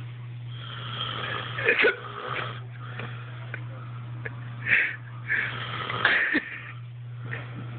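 A person snoring in their sleep, a few snores some seconds apart, over a steady low hum.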